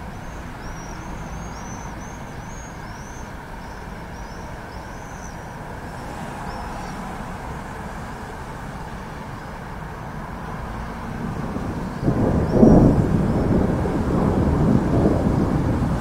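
Thunderstorm ambience: a steady low rumble with a run of short high chirps over it, then about twelve seconds in a loud peal of thunder that breaks suddenly and rolls on.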